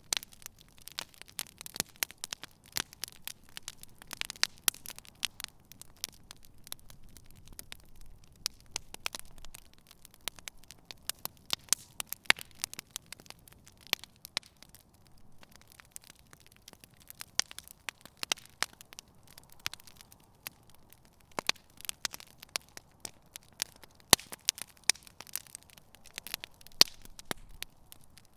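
Wood campfire burning with a dense, irregular crackle and sharp pops over a low, steady hiss of the flames.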